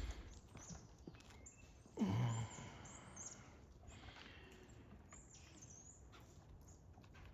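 Quiet outdoor ambience with small birds chirping: short, faint, high chirps scattered throughout. About two seconds in, a brief louder sound slides steeply down in pitch.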